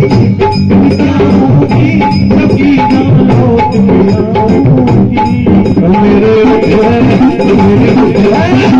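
Devotional kirtan music with drums and hand percussion.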